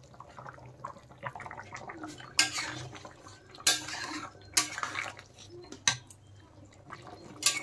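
A metal spatula stirring and scraping through chicken and potato curry in a metal pan, with several short scraping strokes against the pan, over the soft wet sound of the thin gravy simmering.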